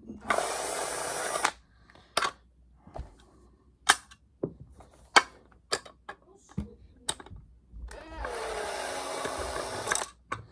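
Cordless drill running twice, briefly about a second long and then for about two seconds near the end, backing out the tiny screws that hold an Arrow door closer's cover. Scattered clicks and taps of the screws and cover being handled fall in between.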